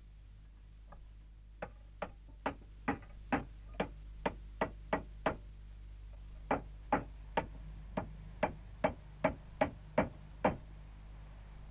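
Hammer nailing wooden roof shingles: two runs of about ten quick, sharp blows, two to three a second, with a short pause near the middle.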